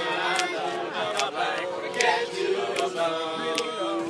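An a cappella group of men's voices singing held backing harmonies behind a girl's lead voice, with sharp clicks keeping a steady beat.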